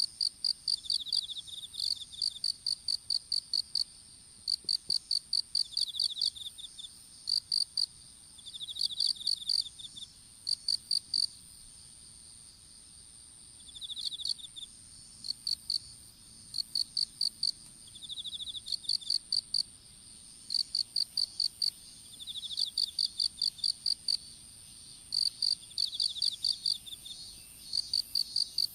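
Crickets chirping: repeated runs of sharp, evenly spaced chirps, with short buzzy trills from a second insect between them and a faint steady high whine beneath.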